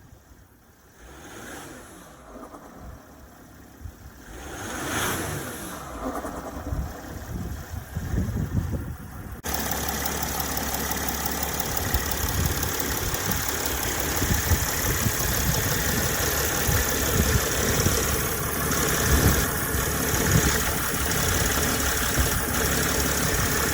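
Mercedes ML320 engine idling and being revved, with the deep grumbling noise from the front end near the radiator that comes in towards the end of each rev; its cause is undiagnosed. About nine seconds in the sound suddenly becomes much louder and stays loud and dense.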